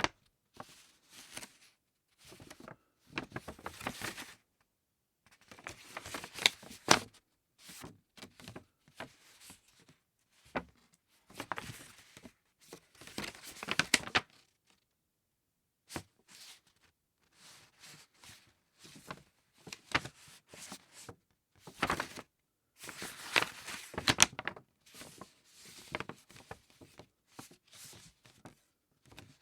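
Thick paper being handled: irregular bouts of rustling and crinkling with sharp crackles, broken by short pauses, the longest about two-thirds of the way through.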